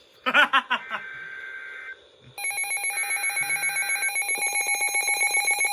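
Emergency Alert System tones: a burst of steady two-pitch data tones lasting about a second, then from about two and a half seconds in a loud alarm tone that pulses rapidly, about eight times a second.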